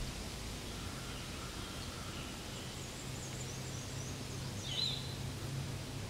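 Outdoor woodland ambience: a steady background hiss with a low hum beneath, and a few quick, high bird chirps between about three and five seconds in.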